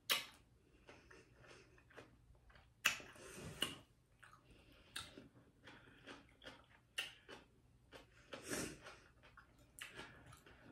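Close-up eating sounds of a person biting and chewing fresh cucumber: soft, irregular wet crunches and mouth noises, a few each second at the busiest moments.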